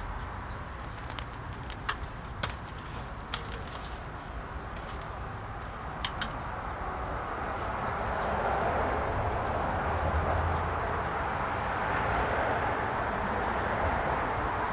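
A few sharp, separate clicks and taps as nylon trellis netting is handled and zip-tied to a metal top rail. About halfway through, a steady rushing noise rises and holds, louder than the clicks.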